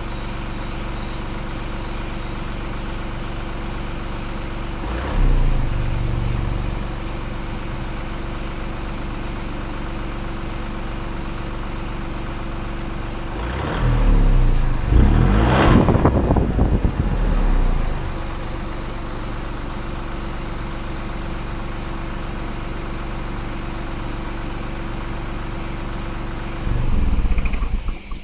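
Exhaust of a BMW 116d's 1.5-litre three-cylinder diesel idling at the tailpipe. It is revved briefly about five seconds in, several times in quick succession around the middle, and once more near the end.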